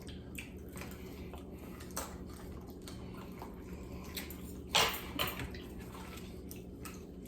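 Quiet wet chewing and mouth noises from eating fried chicken feet, with scattered small clicks and two sharper smacks about five seconds in, over a low steady hum.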